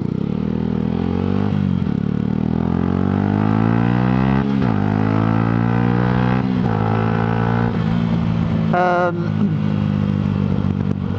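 Yamaha sports motorcycle engine accelerating away, its pitch climbing and then dropping sharply at each of several upshifts, heard from the rider's helmet.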